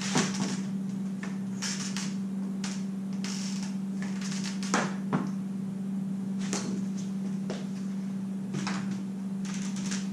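Light knocks and clicks of PVC pipe and fittings being handled and fitted together, with short rustles, over a steady low hum.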